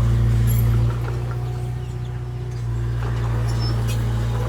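Large diesel engine of heavy earthmoving machinery running steadily. It eases off about a second in and picks back up near three seconds. Faint bird chirps sound above it.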